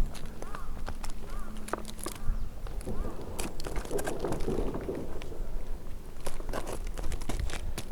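Tree-climbing handling noise: irregular clicks and knocks with a stretch of rough scraping about four seconds in, and a few short chirps in the first few seconds.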